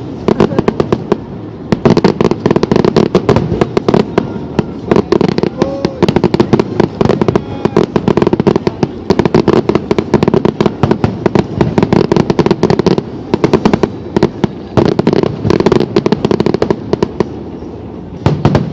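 Fireworks display: rapid volleys of sharp bangs and crackles, many per second, in runs broken by brief lulls, over a steady low hum.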